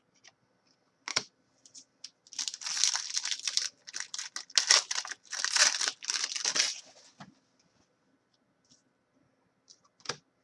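A trading card pack's wrapper being torn open and crinkled: a run of ripping and crackling that lasts about four and a half seconds. Single light clicks or taps come about a second in and again near the end.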